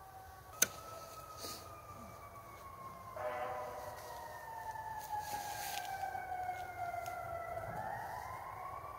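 Sirens wailing, several pitches sliding slowly down over a few seconds and then rising again near the end. A single sharp click sounds about half a second in.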